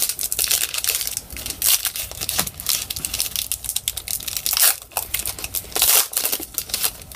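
Foil wrapper of a trading-card pack being torn open and crinkled in the hands: a dense, irregular run of crackling rustles.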